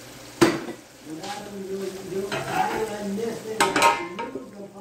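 Food deep-frying in a pot of hot oil, sizzling. There is a sharp metal clank about half a second in, and a couple of metal clinks near the end as a metal lid is set onto the pot.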